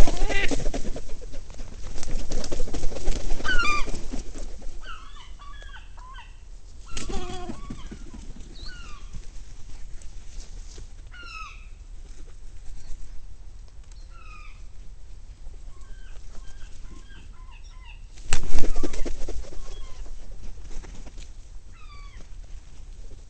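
Gulls flapping their wings close by, loudest at the start, about 2 to 4 s in, and about 18 s in, with many short gull calls in between.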